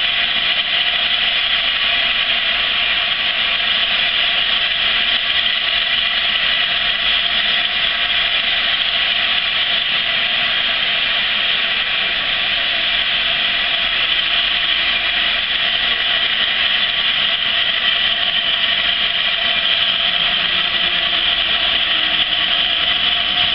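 Steam escaping from LNER A4 Pacific No. 60019 Bittern while it stands at the platform, most likely its safety valves blowing off: a loud, steady hiss with a few steady tones in it and no exhaust beats.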